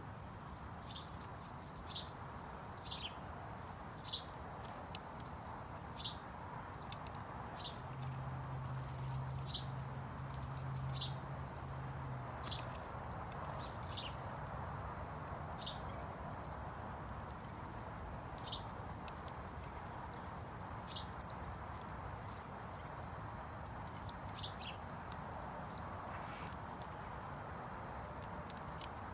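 Insects keep up a steady high-pitched drone with short chirping trills repeated about every second, and birds give scattered sharp chip notes that drop quickly in pitch.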